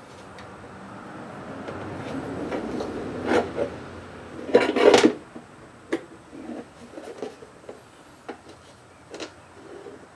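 Aftermarket glove box being worked into a truck's dashboard opening: a building scrape of rubbing for a few seconds, then a loud clatter of knocks about five seconds in, followed by scattered light taps and clicks.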